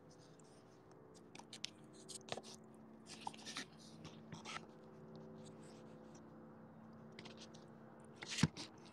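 Faint handling noise: scattered small clicks and scrapes as a phone is moved about and propped against the car, with one sharper knock near the end. A faint steady hum runs underneath.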